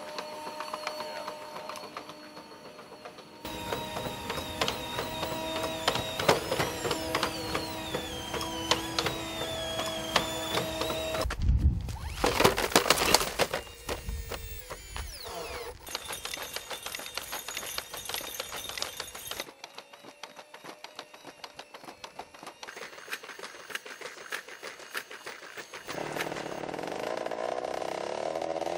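Legged robots at work: a hydraulic quadruped's pump whining, its pitch gliding up and down, with the clatter of its steps, and a loud burst of noise about twelve seconds in. Near the end, the WildCat quadruped's combustion engine starts running, its pitch rising.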